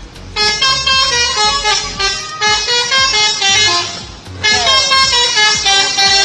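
Indonesian bus 'telolet' horn playing a multi-tone melody in steps of pitch, starting about half a second in. It breaks off briefly about four seconds in and then starts again.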